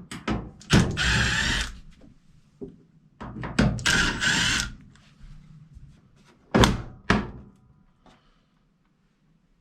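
A power drill whirs in two bursts of about a second each, backing out two screws from the top of a washing machine cabinet. A loud knock follows a couple of seconds after the second burst, with a few lighter clicks around it.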